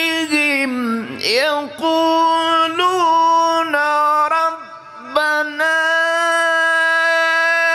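A man reciting the Quran in the melodic tilawat style, holding long drawn-out notes. About a second in his voice falls and rises again in a quick glide. After a short break near the middle he holds one long steady note.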